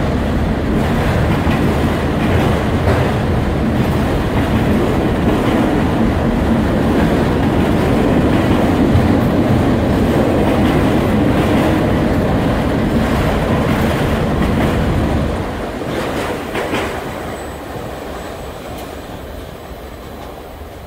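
Autorack freight cars rolling past close by, wheels rumbling and clacking over the rail joints. About fifteen seconds in the end of the train passes and the sound drops away, fading out.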